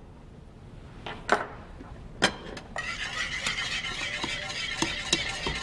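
Metal tongs and a knife clinking against ceramic plates while slices of pot roast are served: two sharp clinks in the first half, then a steady hiss with scattered small clicks from about three seconds in.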